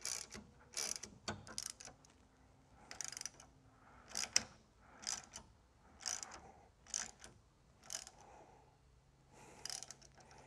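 Socket ratchet clicking in short bursts, about one a second, with a pause near the end, as it is swung back and forth to tighten a bolt that compresses a steel nutsert.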